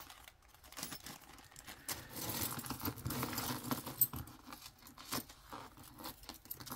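Small plastic zip bag crinkling, then metal costume jewelry (chains, a ring and a bangle) clinking and jangling as it is sorted by hand, with one sharp clink about four seconds in.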